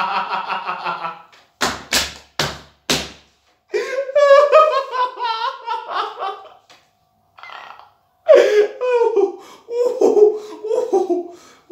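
A young man laughing hard: four short explosive bursts of breath about a second and a half in, then long stretches of high, wavering laughter.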